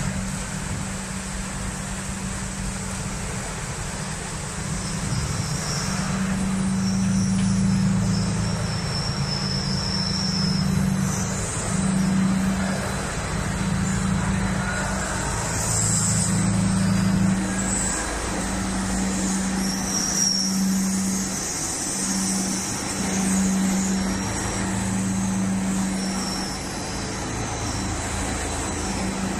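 Steady hum of paper-making machinery running: electric motors, drives and rolls of a testliner and fluting paper production line droning, with a low hum that swells and fades and a faint high whine coming and going.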